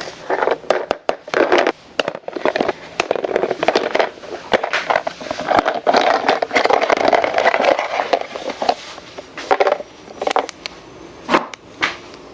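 Plastic toy packaging being handled and opened: irregular crinkling and rustling with many sharp clicks and snaps, busiest through the middle and thinning to separate clicks near the end.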